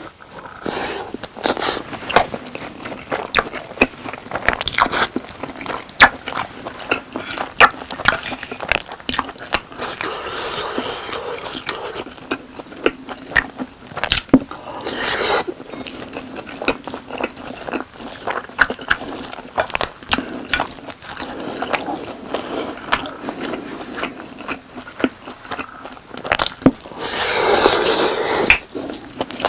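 Close-miked eating sounds: biting into and chewing boneless fried chicken coated in spicy sauce, with rice, in many sharp wet crackles and clicks, and a spoon or utensil scraping now and then.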